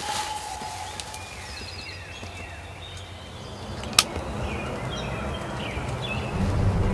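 Birds calling in short, repeated, falling chirps over a quiet outdoor background, with one sharp click about four seconds in. Music fades in near the end.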